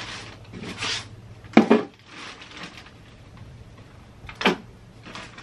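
Peat moss being scooped out of its plastic bag, with the bag rustling. There is a quick double knock about a second and a half in and a single sharp knock near the end.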